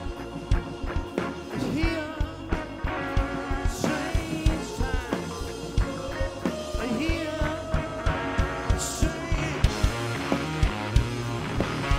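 Rock band playing live: electric guitars, bass and drums, with drum hits keeping a steady beat.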